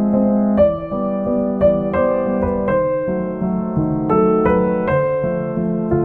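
Background piano music: a gentle melody of single notes, a new note about every half second, over held lower notes.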